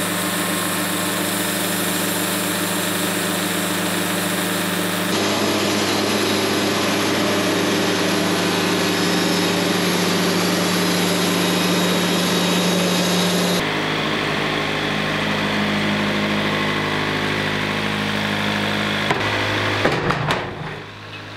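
Wood-Mizer LT70 bandsaw mill running steadily on its engine while the band blade saws through a paulownia log. The drone shifts abruptly twice, about five seconds in and again after about thirteen seconds, and fades off near the end.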